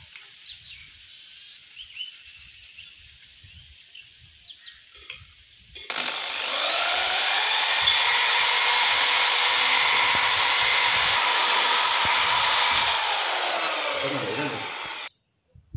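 About six seconds in, a corded electric drill starts, spinning a jam-bottle lid used as a homemade cotton candy spinner head inside a steel pot. Its motor whine rises as it speeds up, runs steadily, then falls as it slows, and cuts off suddenly near the end.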